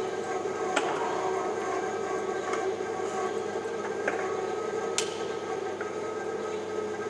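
Steady mechanical hum holding several fixed tones, with a few sharp clicks from hands working on car parts at the front of a car; the loudest click comes about five seconds in.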